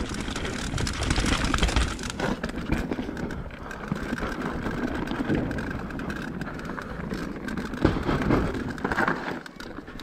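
Mountain bike riding down a rough dirt trail: tyres rolling over roots and stones, with the chain and frame rattling and knocking constantly, and a harder knock about eight seconds in.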